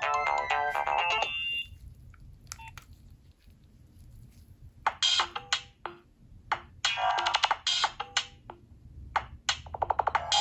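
Nokia 3300b mobile phone ringtones playing through the phone's speaker. One ringtone ends about a second in, and after a short pause another starts about five seconds in, made of short electronic notes in quick groups with brief gaps.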